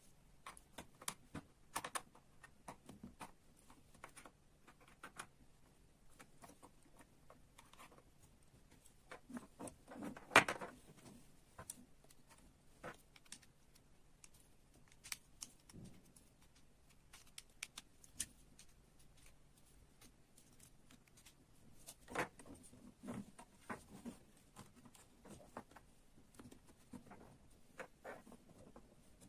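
Small hard parts of a model excavator kit being handled: scattered light clicks and taps, with a sharper knock about ten seconds in and another about twenty-two seconds in.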